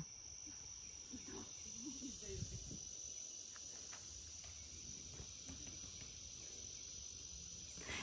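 Faint, steady high-pitched trilling of insects such as crickets, running without a break.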